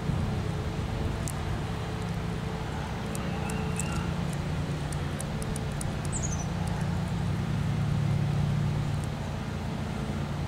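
A steady low engine hum, like a vehicle running, swelling a little about three quarters of the way through, with a few short bird chirps over it.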